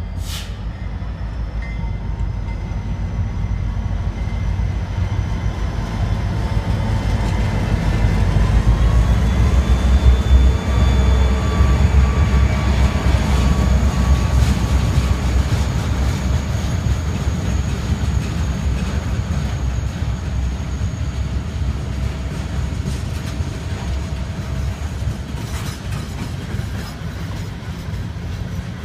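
CSX freight train passing close by behind several diesel locomotives. The locomotives' engine rumble builds to its loudest about ten seconds in, then the freight cars roll past with steady wheel noise on the rails.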